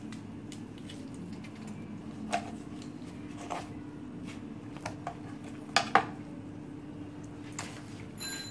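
Kitchen knife and fish knocking on a plastic cutting board while stinging catfish is cleaned: a few scattered sharp knocks, the loudest two in quick succession about six seconds in, over a steady low hum.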